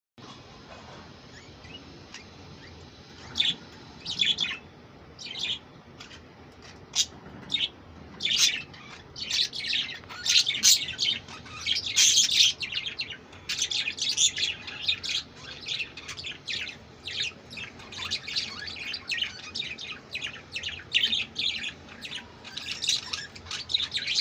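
Budgerigars chirping and chattering: scattered short chirps at first, then quick, almost continuous chatter from about a third of the way in.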